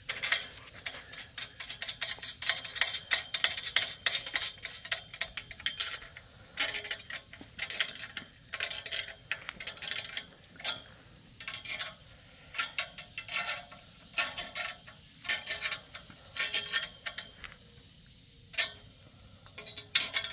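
Small hand ratchet wrench clicking in quick runs as the nuts on U-bolt clamps are tightened, with short pauses between runs.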